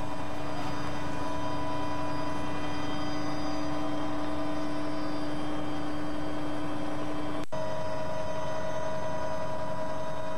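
Steady drone of an aircraft heard from on board: a constant rushing noise with several held tones. About seven and a half seconds in there is a sharp click, where the tones shift as at a splice in the recording.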